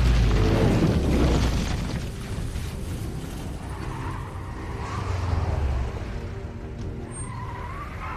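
A deep boom that rumbles for a second or two, under film score music of low held tones, with a second low swell about halfway through.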